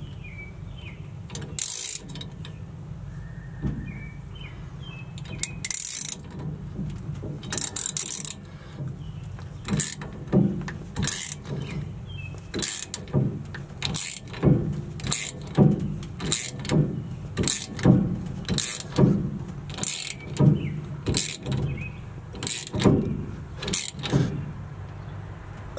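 Hand socket ratchet clicking in repeated strokes as it turns a lug nut to pull an oversized-knurl wheel stud into its press-fit hole in the hub. The strokes come unevenly at first, then steadily about once a second from around ten seconds in.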